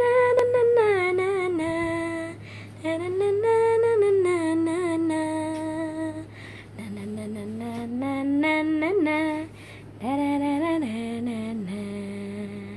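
A woman singing a slow melody unaccompanied, holding long notes that glide up into them and step down at their ends, with short pauses between phrases. A steady low hum runs underneath.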